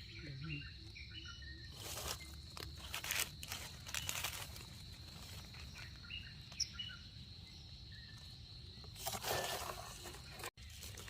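Forest ambience: short bird chirps over a steady high insect drone, broken by a few brief rustles of leaves and brush, the longest near the end.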